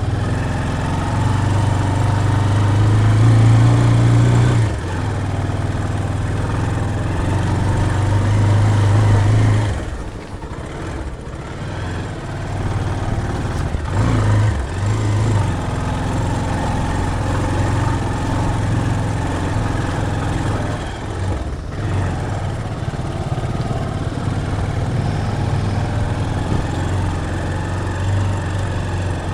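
Motorcycle engine running while riding, its note swelling and easing with the throttle. It is loudest in the first ten seconds, then drops back noticeably just after ten seconds in and runs on steadily.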